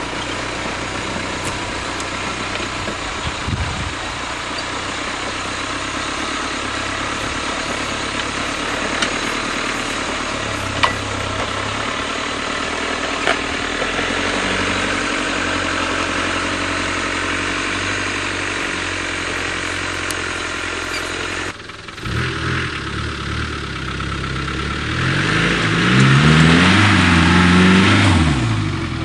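Tracked Land Rover's engine running steadily as the vehicle is tested on its tracks. After a sudden break about three quarters of the way through, the engine revs up and down several times, louder.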